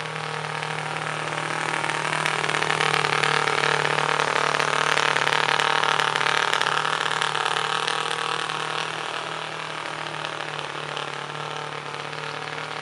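Homemade 138 cc water-cooled twin-cylinder four-stroke gasoline engine of a model boat running steadily at speed. It gets louder as the boat passes close, about halfway through, and fades as it moves away.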